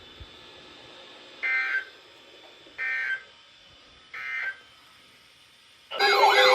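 Emergency Alert System end-of-message data signal: three short, shrill digital bursts about 1.3 seconds apart, the EAS code that closes an alert. About six seconds in, a loud warbling, siren-like sound with several sweeping tones starts suddenly.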